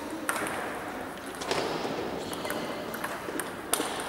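Table tennis balls clicking off bats and tables, a handful of sharp knocks at irregular intervals, the loudest near the end, over steady hall background noise.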